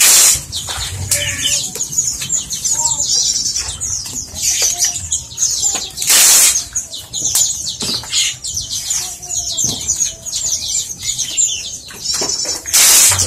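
A crowd of caged birds chirping in quick, overlapping high calls, broken three times by a loud burst of fluttering wings.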